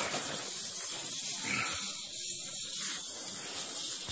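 Spirovent air eliminator's automatic vent hissing steadily and "pissing" as the hot-water heating system is filled: the vent is leaking water and spitting air instead of sealing.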